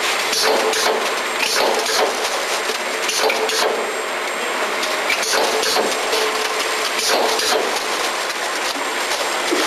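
Model 140 cartoner with its cone infeed running: a steady mechanical clatter over a faint steady hum, broken by frequent irregular clacks.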